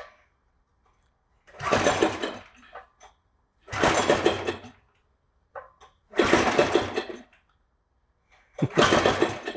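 Single-cylinder four-stroke Briggs and Stratton engine pulled over by its recoil starter four times, each pull cranking it for about a second with a fast chugging rhythm. It falls silent after each pull without catching.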